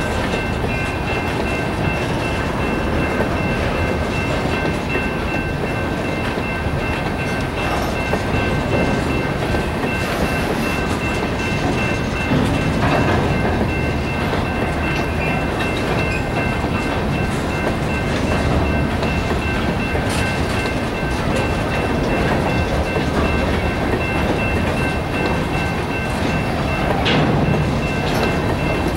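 Freight train's open-top hopper cars rolling steadily through a grade crossing, wheels and trucks clattering and rumbling over the rails. Under it the crossing's General Signals electronic bell rings, plainest at the start.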